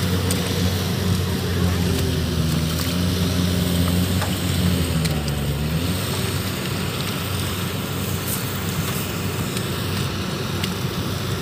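Kubota DC-70 combine harvester's diesel engine running steadily under load as the machine crawls through soft, sticky mud. Its pitch dips about five seconds in, then the engine tone fades and a steady rushing noise remains.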